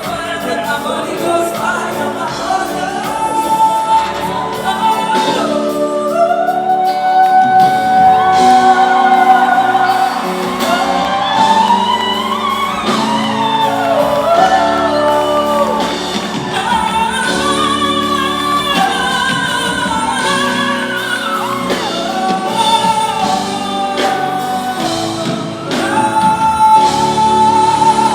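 Live music with singing: a vocalist holds long, wavering notes over a band's accompaniment.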